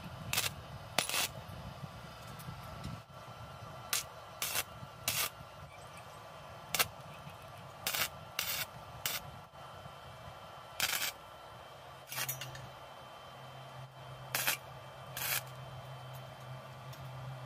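MIG welder tack-welding steel wire hooks onto a square steel tube: about a dozen short bursts of arc noise, each under half a second, with pauses between them as the torch moves from weld to weld.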